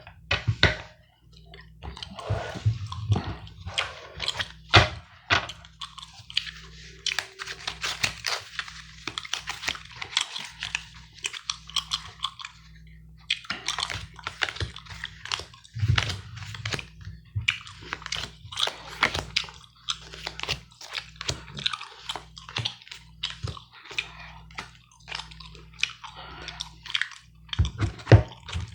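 Close-up gum chewing, a steady run of irregular wet clicks and smacks, mixed with playing cards being handled and shuffled, over a steady low hum.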